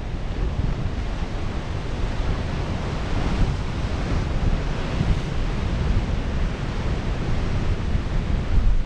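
Ocean surf washing over and breaking on a rocky lava shoreline, swelling in a surge around three to five seconds in. Wind rumbles on the microphone.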